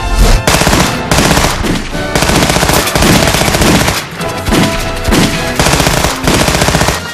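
Rapid automatic gunfire from a belt-fed machine gun: several long bursts with short breaks between them.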